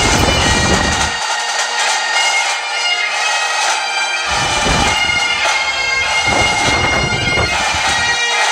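Bagpipe music: a melody played over a steady held drone. A low rumble comes and goes underneath, dropping out about a second in and returning for stretches from about four seconds in.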